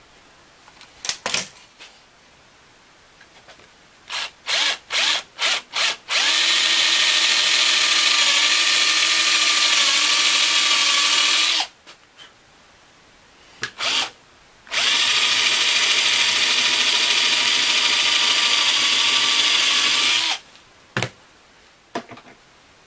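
Electric drill running: several short trigger blips, then two steady runs of about five seconds each with a steady motor whine, and a couple of brief blips between them.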